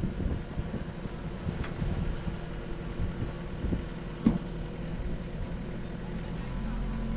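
Diesel engine of heavy earthmoving equipment running steadily, with a single sharp knock about four seconds in; near the end a steady higher hum joins in as the engine note changes.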